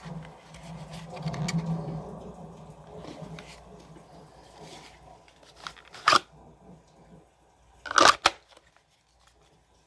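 Sig P365 pistol being handled in a hard plastic holster: a low rubbing of pistol against holster, then a sharp click about six seconds in and a double click about eight seconds in as the pistol snaps in and out of the holster's retention.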